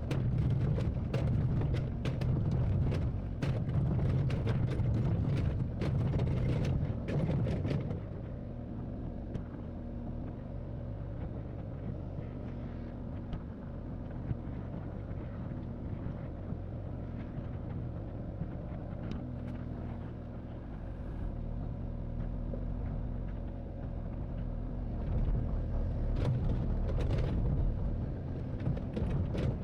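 Excavator's diesel engine working, with many sharp knocks and clanks over the engine noise. After about eight seconds it settles to a quieter, steady run, then works harder again with knocks near the end.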